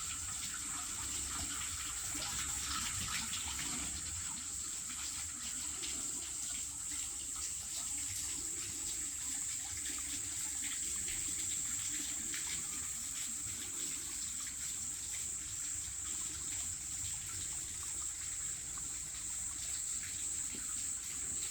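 Running water trickling and splashing steadily, with a steady high hiss above it.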